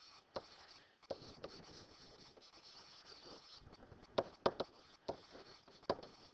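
Stylus writing digital ink: faint scratching strokes, with a handful of short sharp taps as the pen tip touches down.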